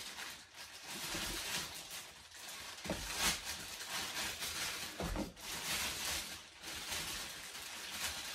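Rustling and scraping of packaging as a charger is worked out of its box, with louder crinkles about three seconds and five seconds in.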